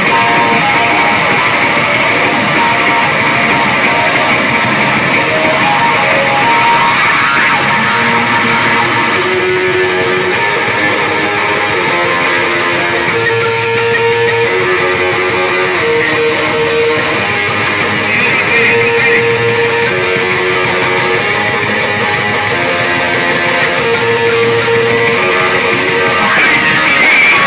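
Loud live noise rock from a bass-and-drums duo: heavily distorted bass guitar repeating a riff of held notes over drums, recorded from within the audience.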